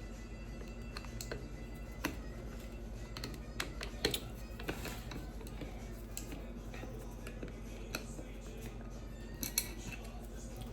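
Scattered small clicks and taps of metal parts and tools being handled while a compression driver is taken apart, over a steady low hum.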